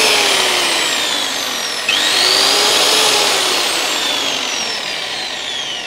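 Mains-powered electric drill running free under no load. Its motor whine slowly falls in pitch, picks up sharply about two seconds in, then slowly falls off again.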